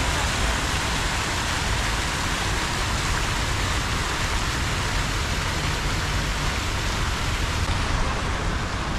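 Fountain jets splashing into a pool: a steady rushing hiss of falling water.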